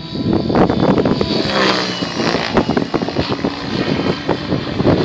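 GAUI X7 electric RC helicopter flying overhead: a steady high motor and rotor whine that shifts in pitch about two seconds in as the helicopter manoeuvres. Wind buffets the microphone throughout.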